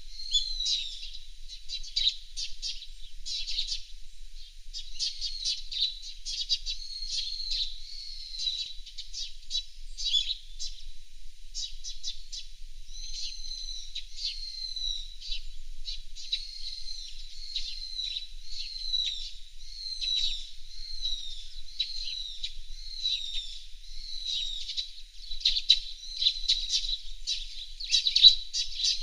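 Small songbirds chirping and calling without pause: a dense run of quick, high chirps and short down-slurred notes.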